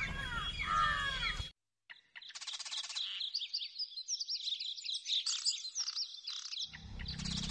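Several small birds chirping and twittering, with short high calls overlapping one another and a fast, even trill early in the chirping. A brief silent gap comes before the chirping, and a low rumble comes in near the end.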